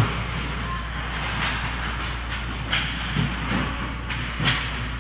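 Ice hockey game sounds in a rink: steady background noise with several sharp knocks of sticks and puck, the loudest right at the start and another near the end.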